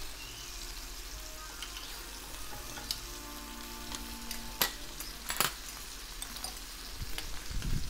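Marinated pork sizzling in hot oil and juices in a nonstick grill pan, a steady hiss, with a few sharp clicks of a metal utensil against the pan.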